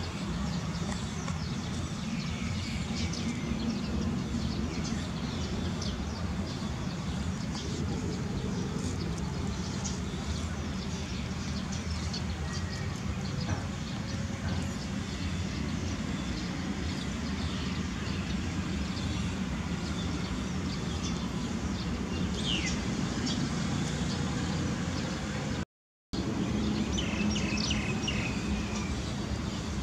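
Outdoor ambience: a steady low hum with small birds chirping now and then, high and brief, including a couple of quick falling chirps near the end.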